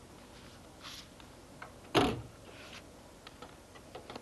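Floppy disk being handled and slid into a PC's floppy drive: a few light clicks and handling noises, with one louder knock about two seconds in.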